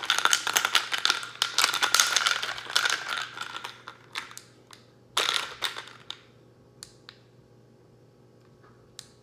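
BlendJet portable blender running on ice cubes with no liquid: the ice rattles and is chopped in the jar for three to four seconds over a faint motor whine. A shorter clatter of ice follows about five seconds in.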